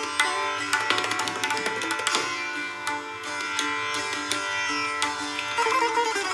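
Background music of Indian classical style: plucked sitar-like strings over tabla, with quick runs of plucked notes.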